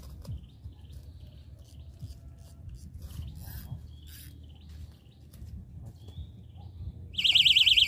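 Small birds chirping faintly over a low wind rumble, then, about seven seconds in, a loud electronic alarm starts up: a fast-warbling, siren-like tone that keeps going.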